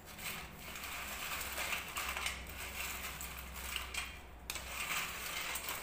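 Crisp home-fried crinkle-cut potato chips crackling and rustling as hands toss them on a steel plate, with a short break about four and a half seconds in.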